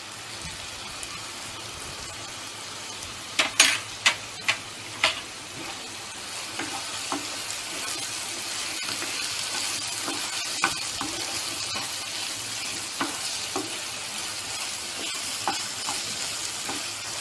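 Sausage pieces and onions sizzling in hot oil in a pan while a spatula stirs them, with a few sharp clicks and knocks of the spatula against the pan about three to five seconds in. The sizzle grows a little louder about halfway through.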